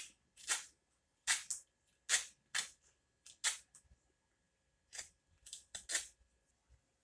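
Potato peeler scraping the rind off a Sicilian lemon: about ten short, quick strokes, with a gap of about a second in the middle.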